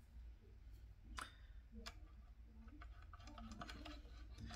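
A few faint clicks of small plastic parts being handled, the clearest a little over a second in, over a low steady hum.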